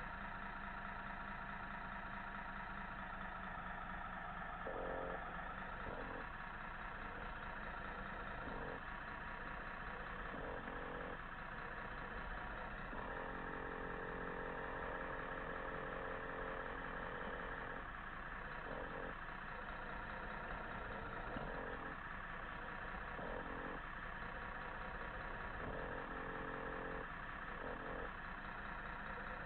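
Radio-controlled scale truck's sound module playing a diesel engine idling, its note stepping up and down every few seconds as if revving.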